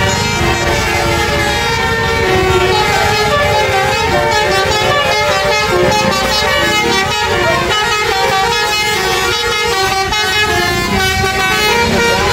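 Tour bus basuri musical horn playing a melody of quick stepped notes without pause, over a low rumble.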